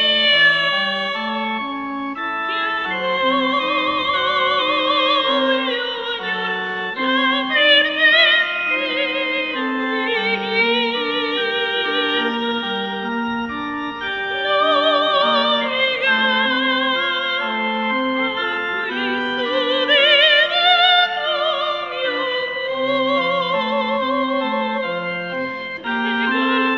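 Classical, operatic-style singing with wide vibrato over a keyboard accompaniment, organ-like in tone, that plays an even broken-chord pattern underneath.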